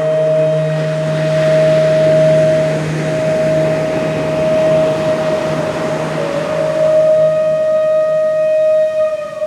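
A long, held "Om" chanted by a low male voice over a sustained flute note, with ocean surf washing in behind it. The chanted tone fades out near the end while the flute note carries on.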